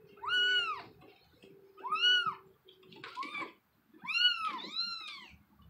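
Cats meowing: about four short calls that rise and fall in pitch, with two calls overlapping near the end.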